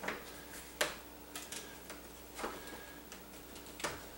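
Sharp, irregular clicks and knocks of shoe-rack parts as the top piece is pushed down onto the poles, about six in all, the loudest about a second in.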